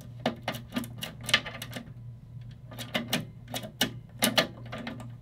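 Irregular sharp mechanical clicks and clacks, often several in quick succession, from the lid latch and key lock of a Durabox handgun safe being worked by hand. The latch catches badly, which the owner takes to be why the safe won't close properly.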